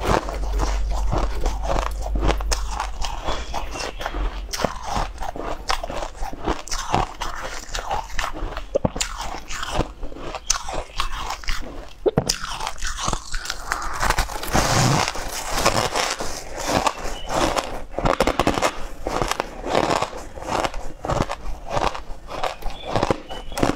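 Close-miked biting and chewing of chunks of crushed ice, a dense stream of crunching and crackling. Around the start a hand grabs a chunk from the tub of crushed ice.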